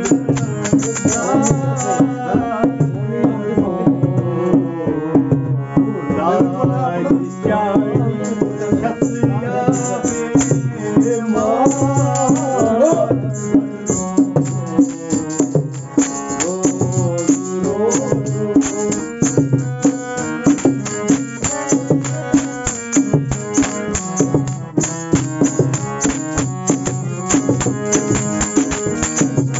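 Kashmiri folk music: a tabla-type hand drum keeps up a fast, even rhythm over a steady drone. A sliding melody line rides above it through roughly the first half.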